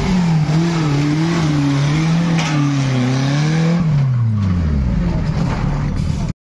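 Off-road vehicle engine revving under load, its pitch rising and falling repeatedly, then dropping away about four seconds in; the sound cuts off suddenly near the end.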